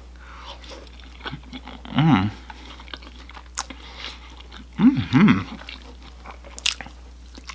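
A person chewing and biting into crunchy fried orange chicken close to the microphone, with wet mouth clicks and crunches. A short hum of the voice comes about two seconds in, and two more just before the five-second mark.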